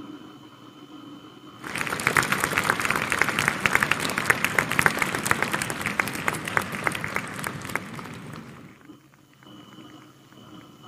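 An audience applauding. The clapping starts abruptly about a second and a half in and fades out near the end. A steady cabin hum with a thin high tone is heard before and after it.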